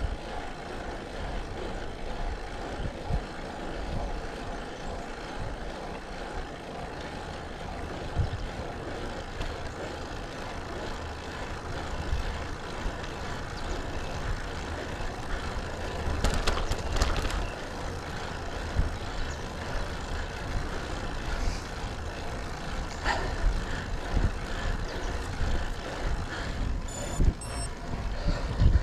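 Steady rush of wind and road noise from a road bike riding on asphalt, picked up by the bike's camera, with a few short clicks and rattles about two-thirds of the way through and again near the end.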